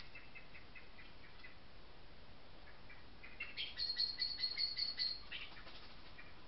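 A small animal gives a rapid run of high-pitched chirps, about five or six a second, for about two seconds a little past the middle. Fainter, similar ticks come near the start.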